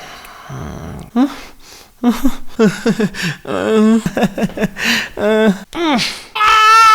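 A man's voice making wordless cartoon-like vocal sounds: breathy noises at first, then a quick run of short pitched syllables, then a long high wail starting near the end.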